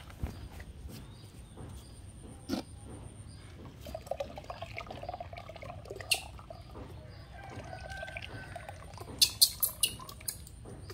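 Water pouring and dripping from an upturned electric kettle into a basin of water, with a few sharp loud clicks near the end.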